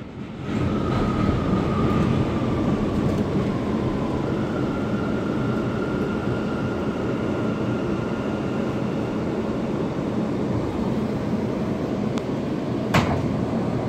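R179 subway car running on the rails as it pulls into a station, heard from inside the car: a steady rumble with a thin high whine that slowly falls, then a second steady whine. A single sharp clack comes near the end.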